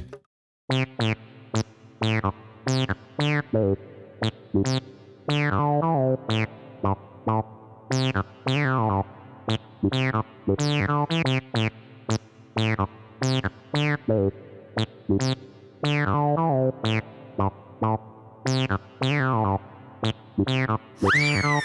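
Comic synthesizer tune: quick plucked notes, several a second, each sliding steeply down in pitch over a repeating bass line. Near the end comes a longer swooping note.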